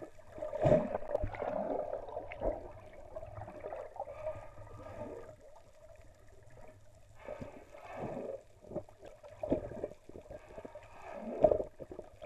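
Muffled underwater sound from a camera submerged in the sea: water moving and gurgling around it in uneven swells, with a few dull knocks.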